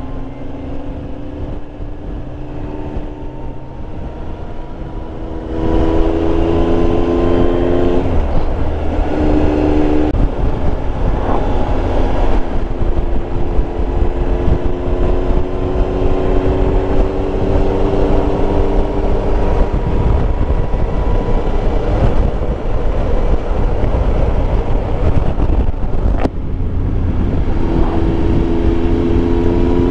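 Triumph Tiger Explorer 1200's three-cylinder engine running under way, over steady wind and road noise. The engine pitch climbs slowly in long stretches, dropping back and climbing again a few times. The sound gets louder about five seconds in and dips briefly near the end.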